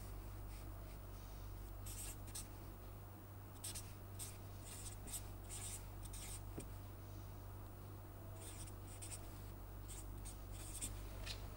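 Felt-tip marker writing on paper: short scratchy strokes coming in several clusters, over a steady low hum.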